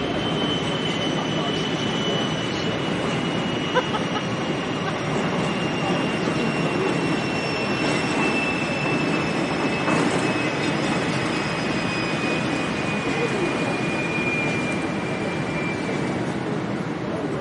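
Electric towing locomotive (canal 'mule') on the lock-wall rails, giving one long, high wheel squeal that slides slowly down in pitch, under a steady murmur of voices.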